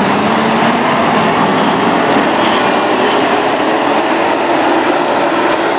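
A pack of dirt-track stock cars racing, their engines blending into one loud, steady din.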